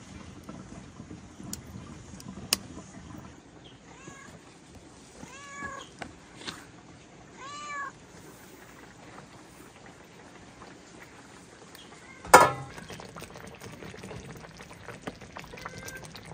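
A cat meowing several times in short rising-and-falling calls, followed a few seconds later by a single loud, sharp clack.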